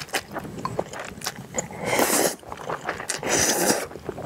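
Close-miked eating of instant noodles. There are two long wet slurps, one about two seconds in and one about three and a half seconds in, with soft chewing and mouth clicks between them.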